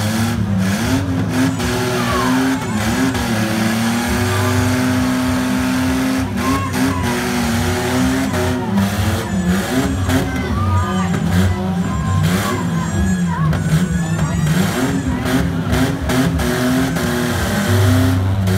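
Demolition derby engines, a beat-up minivan and pickup truck, revving hard as they shove against each other, the pitch rising and falling again and again.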